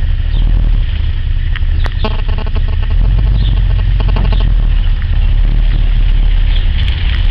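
1955 Dodge Royal Lancer's 270 cubic-inch Red Ram V8 heard from inside the cabin while driving: a steady low engine rumble under road noise, with a brief rattle a couple of seconds in.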